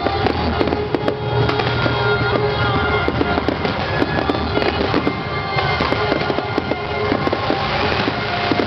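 A fireworks display at full pace: many bangs and crackles from shells and rising comets in rapid, overlapping succession. Music with held tones plays underneath.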